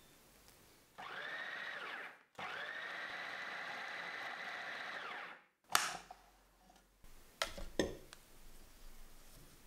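Food processor pulsing pie dough of flour, butter and cold water: a short burst, then a run of about three seconds, each spinning up and winding down, while the dough starts to come together. A sharp click and a few knocks follow near the end.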